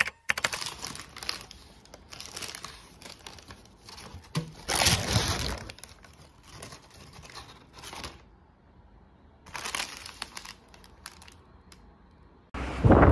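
Brown paper bakery bag crinkling and rustling as it is handled and opened, in several bursts, the loudest about five seconds in. Near the end a sudden loud thump.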